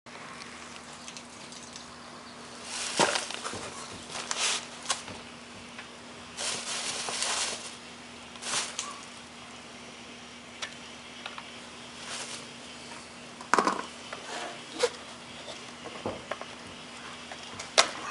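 Handling noise: scattered sharp clicks and knocks with short stretches of rustling, over a faint steady hum.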